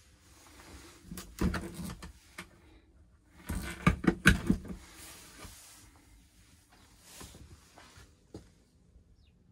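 Clatter and knocks of a motorhome washroom's hand shower being handled in its wall holder, in two bursts: one about a second in and a louder one near the middle.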